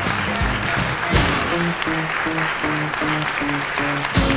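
Audience applauding, with background music over it: a melody of short stepping notes above a low, regular beat.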